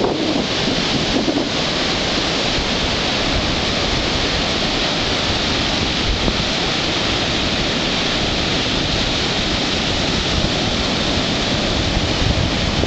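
Rough storm surf breaking offshore and washing up the sand as a steady, even wash of noise, with wind rumbling on the microphone, a little stronger near the start.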